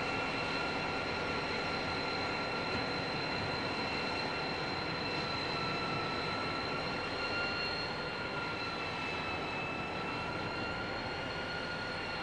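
Two Pacific National 81 class diesel-electric locomotives working as they haul an empty grain train slowly away: a steady engine rumble with a constant high whine over it.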